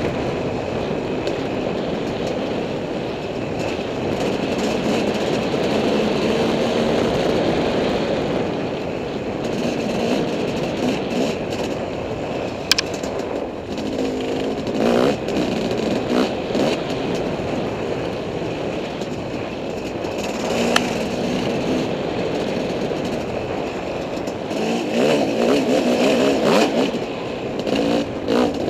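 Dirt bike engine running and revving up and down with the throttle, with a few sharp knocks from the bike, the loudest about halfway through and a little past two-thirds of the way in.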